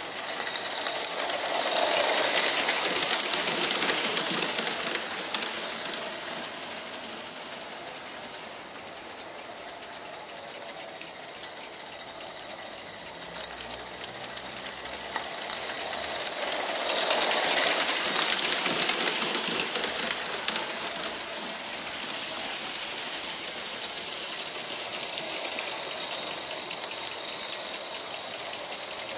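Accucraft DSP&P 2-8-0 live-steam model locomotive running on garden-railway track: a fast clatter with a steady hiss. It grows louder twice as the engine passes close, once in the first few seconds and again a little past halfway.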